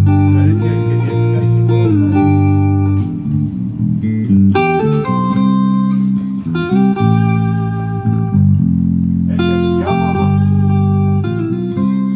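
Background guitar music with long held notes.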